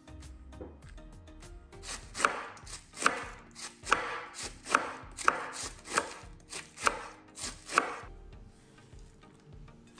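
Chef's knife shredding a head of cabbage on a wooden cutting board: about nine crunchy slicing strokes, each ending in a knock of the blade on the board, a little under a second apart, starting about two seconds in and stopping about eight seconds in.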